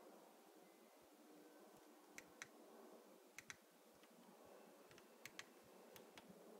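Front-panel navigation buttons of a Popcorn Hour C200 media player being pressed, giving faint, sharp clicks, mostly in quick pairs, four times over a few seconds.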